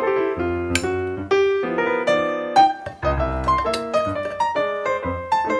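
Background piano music: a run of quick, separate notes over repeated bass notes.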